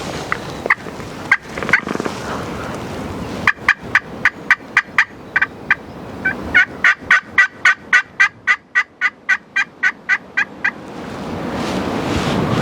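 Wild turkeys calling: a few scattered notes, then a long, even run of short yelps at about four a second with a brief break partway through. Wind noise on the microphone builds near the end.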